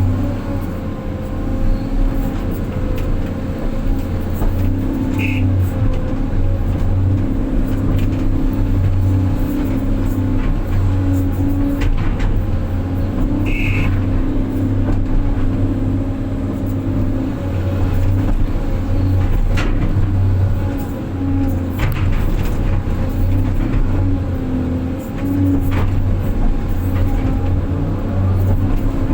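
Diesel engine of a hydraulic excavator running steadily and swelling and easing with the digging load. Two short high beeps sound, one about five seconds in and one near fourteen seconds.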